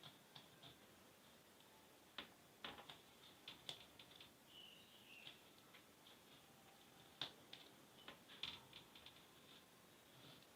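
Faint, irregular small clicks and scratches of a blade slitting scuba fabric along a chalked line to open an armhole.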